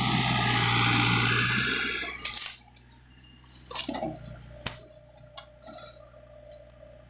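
Mini excavator dumping a bucket of soil into a dump truck bed: a loud rushing slide of dirt over a low engine hum for about two seconds, then it stops, leaving a few sharp knocks and clanks over a faint idle.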